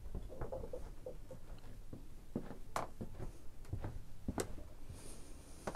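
Faint handling rustle from a phone camera being carried through a small room, with footsteps and a few scattered light clicks.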